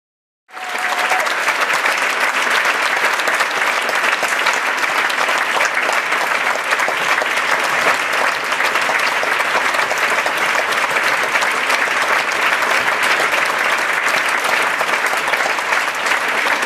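Theatre audience applauding steadily, many hands clapping at once; it starts abruptly about half a second in.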